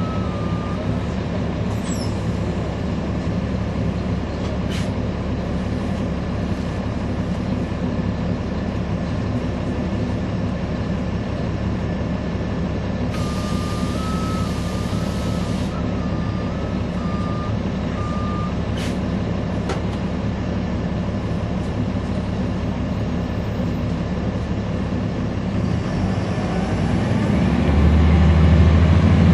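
Caterpillar C13 ACERT diesel engine of a NABI 40-SFW transit bus idling, heard from on board. About 13 s in, a hiss of air is released alongside a repeating two-tone electronic beep. Near the end the engine revs up as the bus pulls away, with a rising whine.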